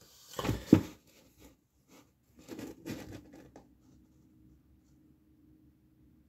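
A paperback coloring book being handled and closed against a wooden table: a loud thump with rustling under a second in, and a second, shorter spell of rustling and knocking about halfway through, after which only a faint steady hum remains.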